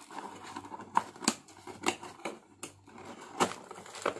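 Small cardboard box being folded shut by hand: several sharp taps and scrapes of the cardboard flaps, the loudest about a second in.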